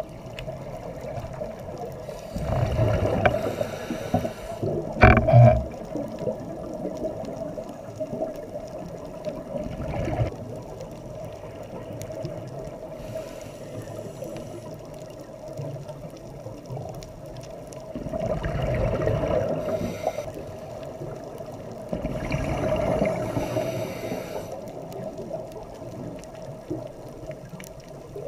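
Underwater sound of a scuba diver breathing through a regulator: bursts of exhaled bubbles lasting one to two seconds, coming every few seconds, the sharpest and loudest about five seconds in, over a steady faint hum.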